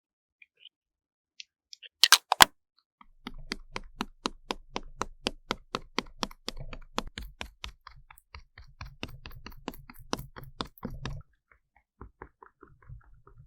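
Makeup tools tapping and clicking on a green melon's rind: a loud double click about two seconds in, then a quick, even run of light taps, about four a second, that thins out to scattered taps near the end.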